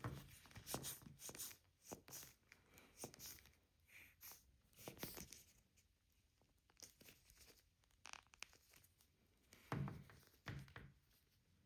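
Faint, scattered rustles and light taps of a soft vinyl toy figure being handled and turned in the hands, with a slightly louder pair of rustles near the end.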